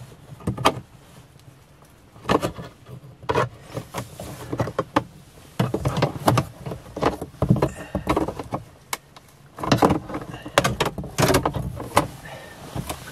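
Irregular plastic clicks, knocks and snaps as a plastic pry tool works along the Mercedes-Benz GLA's dashboard centre-speaker grille and pops its clips loose. The clicks come thickest near the end.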